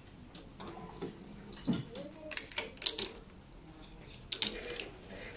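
Sharp clicks and ticks from a badminton racket being strung on a stringing machine, as the string and clamps are worked: a single click about a second and a half in, quick clusters of clicks around two and three seconds in, and another cluster near the end.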